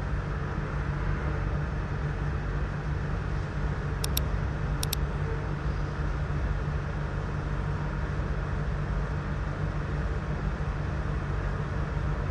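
Steady low background rumble, with two short high-pitched dings about four and five seconds in: the sound effect of a subscribe-button and bell animation.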